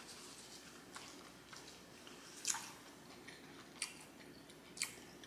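A person chewing a mouthful of shrimp and broccoli close to the microphone, with soft, faint mouth smacks about four times; the loudest comes about halfway through.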